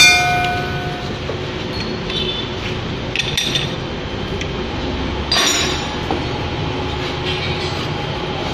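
Metal clinks on a large four-jaw lathe chuck as the jaws are set on a steel bar. A loud ringing clang comes right at the start, and two more ringing clinks follow about three and five and a half seconds in, over a steady workshop rumble.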